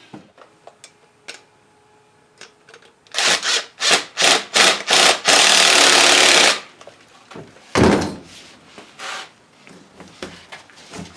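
A hose being sawn through: about seven quick back-and-forth saw strokes, then a second or so of fast continuous sawing, followed by a single thump.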